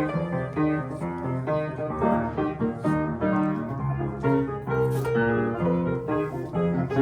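Solo acoustic piano playing a flowing melodic passage of many struck notes over a bass line.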